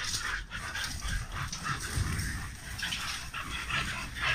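Several dogs whimpering and panting in quick, short bursts.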